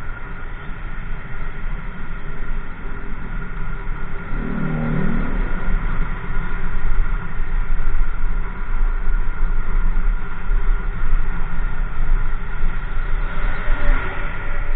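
Motorcycle ride noise: wind buffeting the microphone over the steady running of the bike's engine, growing a little louder a few seconds in as the bike picks up speed.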